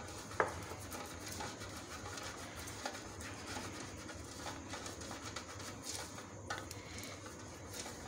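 Silicone pastry brush spreading oil over butter paper in a metal cake pan: soft brushing and rustling, with a few light clicks, the sharpest about half a second in.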